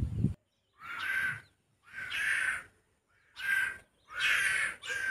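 Crows cawing: a series of about five harsh caws, each roughly half a second long, coming about once a second.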